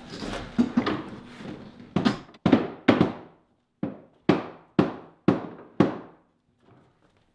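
Hammer blows on the wooden hull of a clinker-built boat as soaked, steamed ribs are nailed in against the planking. Several quick knocks come first, then sharp single strikes about twice a second, each dying away quickly.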